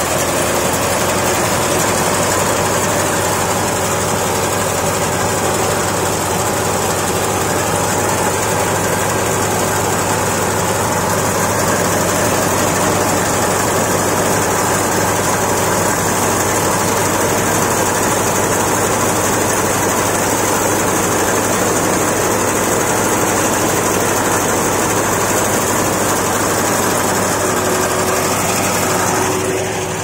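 4LBZ-110 half-feed mini rice harvester running steadily while it cuts and threshes paddy, a continuous engine and machinery sound that eases off slightly near the end.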